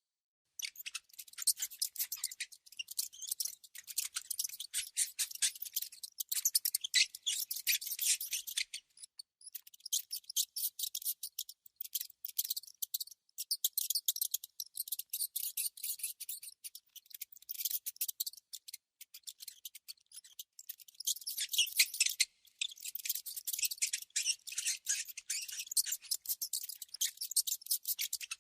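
A mouse making rapid, crisp, high-pitched scratching clicks in quick runs, broken by short pauses.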